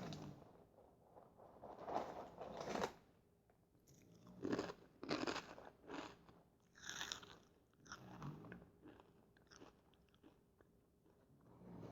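Fritos corn chips being bitten and chewed close to the microphone: a run of crisp crunches in several clusters, with quieter moments between bites.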